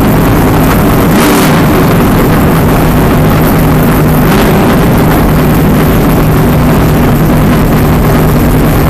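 Race car engine running loud and steady, heard from inside the car, its pitch shifting slightly, with two brief rushing surges about a second and four seconds in.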